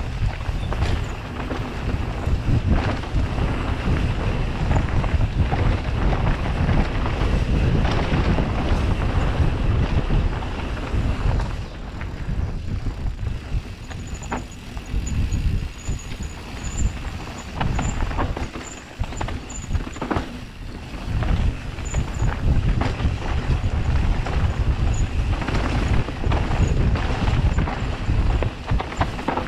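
Mountain bike riding downhill on a rough trail: wind buffeting the microphone over the rumble and rattle of the tyres and bike on the ground, easing for a few seconds around the middle.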